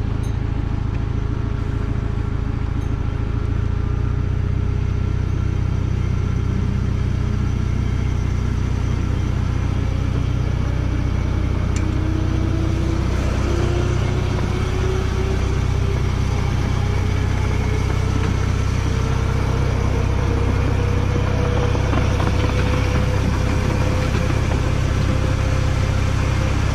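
Ride-on miniature railway locomotive running along the track: a steady low hum with a whine that rises slowly in pitch from about six seconds in as the train picks up speed.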